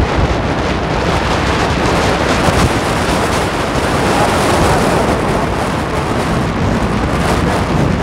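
Steady wind rush on the microphone of a moving Hero Splendor Plus motorcycle, mixed with its 100 cc single-cylinder four-stroke engine running at road speed.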